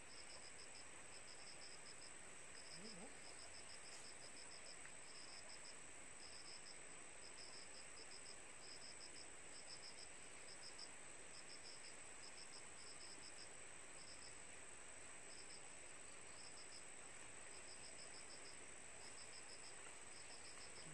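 Faint crickets chirping in short pulsed trills, about two a second, over a steady high-pitched whine.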